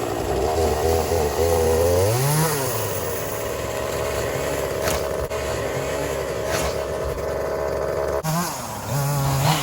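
Two-stroke chainsaw running, revving up and back down briefly about two seconds in, then holding a steady note. Near the end the sound changes abruptly to a higher, wavering engine note.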